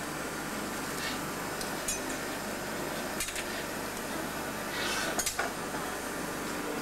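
A glassblower's metal blowpipe and tools clinking against the bench and glass, a few sharp clicks with a light ring over steady background noise, the strongest ones about five seconds in.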